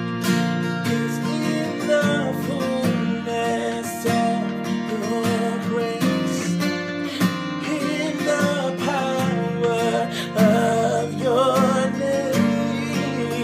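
Acoustic guitar strummed in steady chords under voices singing a gospel song, the sung melody wavering and running from about two seconds in.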